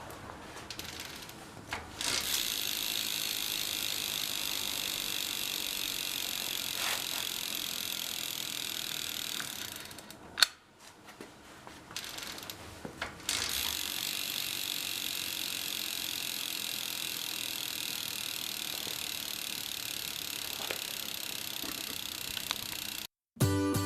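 Bicycle rear wheel with an internal three-speed hub and roller brake spinning, giving a steady whir. It stops about ten seconds in with a sharp click, then spins again for the rest of the time before cutting off near the end.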